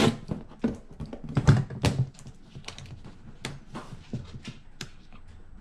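Plastic packing-slip envelope on a cardboard box being picked at and torn open by hand: irregular crinkles and clicks of plastic and paper, busiest about one and a half to two seconds in.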